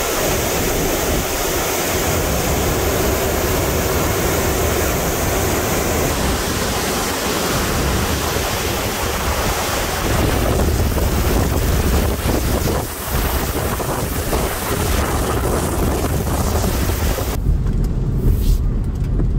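Hurricane wind blowing hard through roadside trees, with heavy wind buffeting on the microphone. Near the end it changes to a muffled low rumble heard from inside a car.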